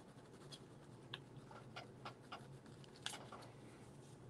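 Near silence: faint room tone with a low steady hum and a few soft, scattered clicks and taps.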